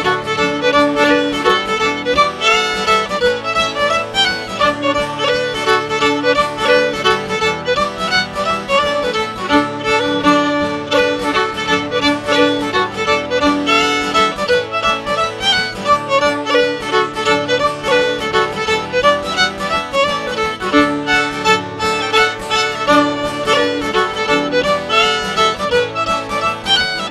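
Fiddle playing an Irish traditional dance tune, a continuous run of quick notes.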